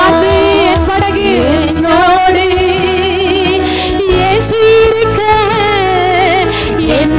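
Church worship music: a held, wavering melody line over a steady low bass.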